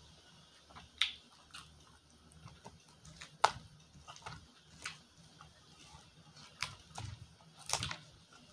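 Close-miked chewing and eating of a salad, with a fork picking at food in the bowl: about eight sharp, irregular crisp clicks and crunches, the loudest about three and a half seconds in.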